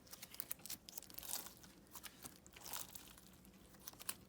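Fishbowl slime being squished and stretched by hand, its beads giving quiet, irregular crunchy clicks and crackles.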